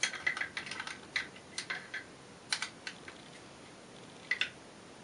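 Small hard clicks and taps, a quick run in the first two seconds and then a few scattered ones, as an Allen wrench is worked to drive the screw up through an AK pistol grip into the receiver.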